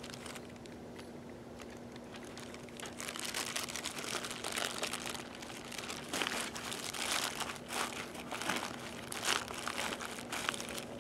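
Packaging crinkling and rustling in irregular handling noise as items are handled, starting about three seconds in after a quieter stretch.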